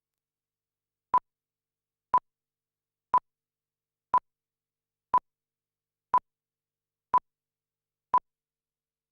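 Eight short electronic beeps, all at the same pitch, evenly spaced one per second, with dead silence between them.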